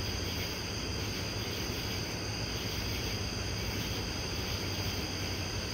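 Insects chirring in a steady night chorus over a constant low hum.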